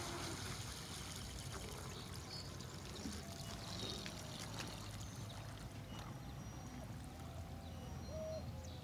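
Water lapping and trickling at the edge of the pond, stirred up by the wake of a passing RC speedboat.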